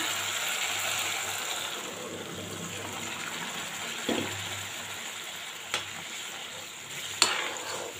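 Boiled horse gram dal poured into a hot iron kadhai of fried masala: liquid gushing in, loudest at first and fading over the first two seconds into a soft steady simmer. A thump about four seconds in and a couple of sharp clicks near the end from the steel ladle against the pan.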